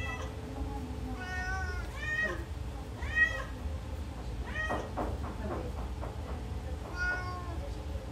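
Newborn kittens mewing: about six short, high-pitched calls spread through the time, each rising and falling in pitch, over a steady low hum.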